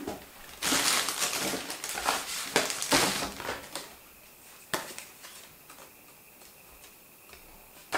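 Paper and packaging rustling and crinkling as the box contents and booklet are handled, busiest in the first few seconds, then one sharp click near the middle before it goes quiet.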